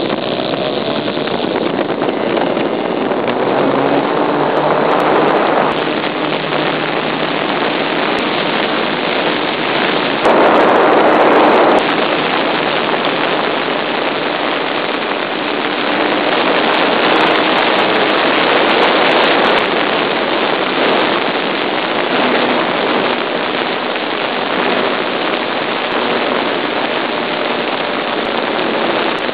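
Small internal-combustion engine of a radio-controlled model airplane running hard, heard close up from a camera mounted on the plane, loud and harsh with rushing air; its pitch drifts as the throttle changes, and it gets louder for a second or so about ten seconds in.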